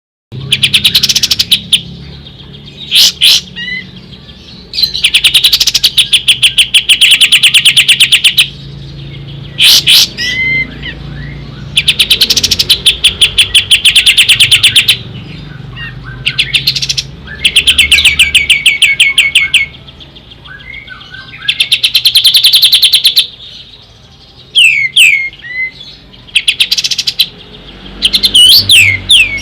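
Kapas tembak songbird singing: loud fast trills of rapidly repeated notes, each lasting two to three seconds, repeated several times with short sharp whistled and gliding calls between them.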